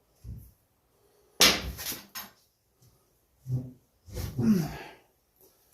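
A dog growling and grumbling in several short, low bursts, one sliding down in pitch near the end, with a sharper, louder burst about a second and a half in.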